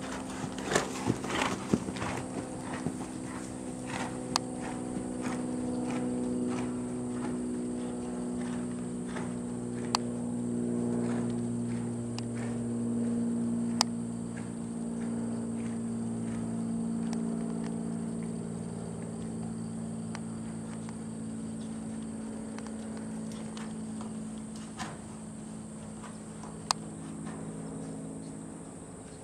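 Hoofbeats of a ridden horse on arena sand, coming thick and regular in the first few seconds, then only as a few sharp knocks. A steady low hum of several tones sets in about four seconds in and runs underneath.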